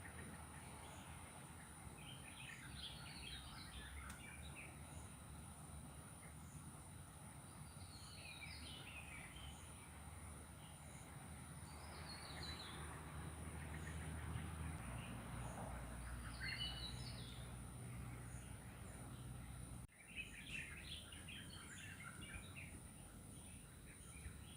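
Forest ambience: a bird sings a short, falling, chirpy phrase about every four seconds over a steady high insect drone and a low hum.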